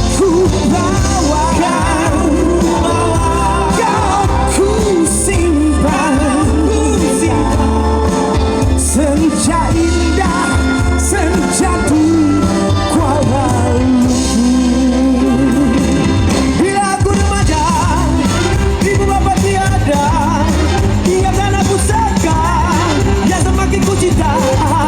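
Live band music with singing: a pop-rock song with heavy bass and a voice over it, playing continuously.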